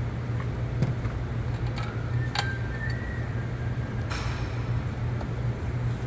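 A few light metallic clicks and one short ringing clink, about two and a half seconds in, as bolts and hardware are handled against the supercharger's aluminium head unit, over a steady low hum.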